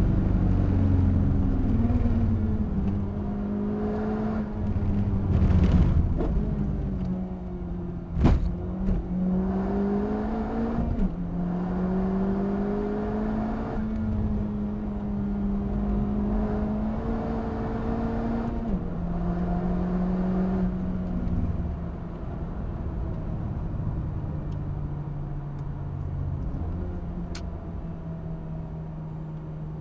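Honda Civic Type R FK8's turbocharged 2.0-litre four-cylinder engine, heard from inside the cabin on track. Its pitch falls and rises and jumps in steps as gears change while the car slows through corners, over a steady road rumble. There is a sharp knock about eight seconds in.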